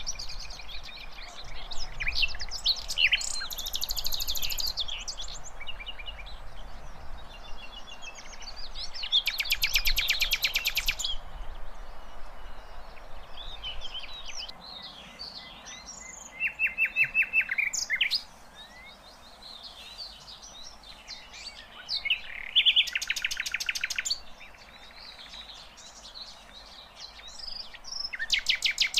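Sikatan londo flycatcher singing in the wild: a busy run of high chirps and whistles broken by several fast, rattling trills of a second or two each, over a steady background hiss.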